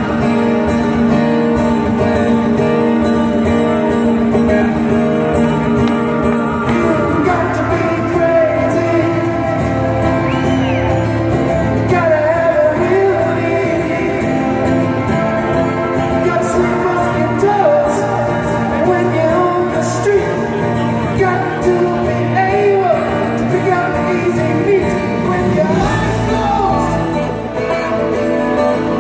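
Live rock band playing in an arena, heard through a phone's microphone: strummed acoustic guitar and bass under a male lead voice that comes in singing about seven seconds in, with the hall's echo.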